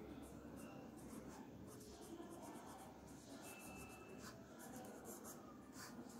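Faint scratching of a pen on paper as a word is handwritten, in short irregular strokes.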